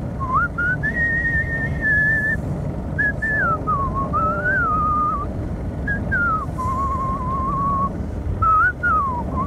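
A man whistling a tune by mouth in short phrases with brief breaks, over a steady low rumble.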